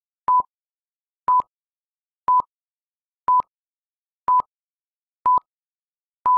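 Film-leader countdown beeps: a short, steady, single-pitched beep once each second, each with a faint click at its start and end, and silence in between.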